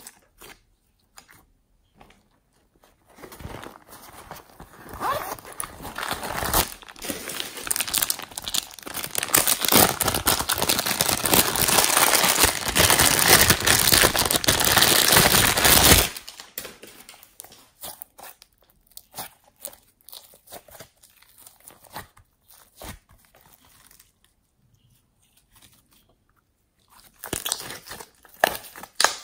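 Thin plastic packaging bag crinkling and crackling as hands squeeze slime through it, loud and dense from a few seconds in until about halfway. Before and after it, scattered soft clicks of slime being squeezed in the hands.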